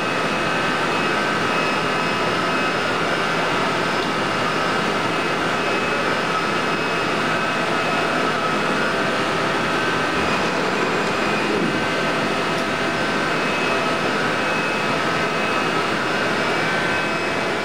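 Ikegai VMX-4 vertical CNC machining center running under power: a steady hum and whine with several high steady tones, while the table is jogged along its travel.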